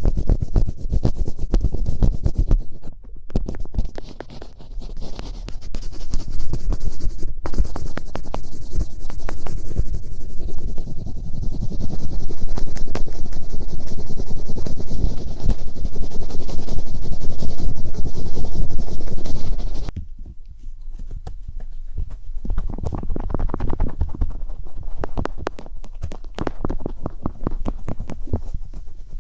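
Close-up scratching and rubbing right at a microphone, a dense crackle that grows louder toward the middle and drops off sharply about twenty seconds in before carrying on more softly.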